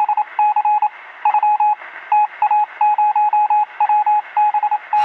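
A rapid, uneven run of short and longer electronic beeps at one high pitch, sounding thin, as if over a phone line or radio.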